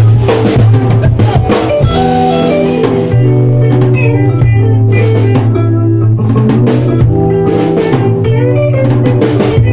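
Live band jam: electric guitar and bass playing sustained chords over a drum kit beat, loud and steady.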